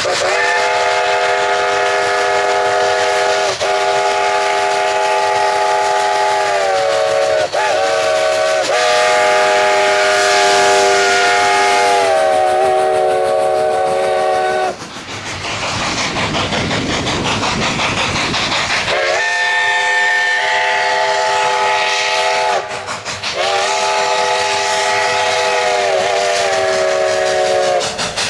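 Steam locomotive whistle sounding several notes at once in the long-long-short-long grade-crossing pattern, the final blast held several seconds, each blast sagging in pitch as it closes. A loud rush of hiss follows, then the whistle begins the pattern again with two long blasts and a short one.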